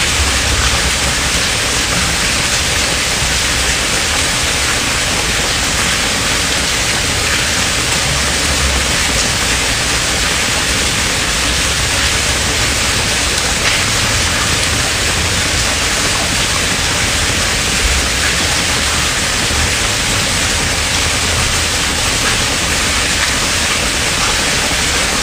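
A loud, steady hiss of noise, with a few faint ticks.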